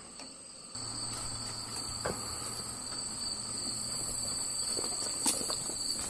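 Insects, crickets, trilling steadily in high-pitched bands. Under a second in, a steady low hum and a louder outdoor background start abruptly, with a few scattered footsteps on dirt.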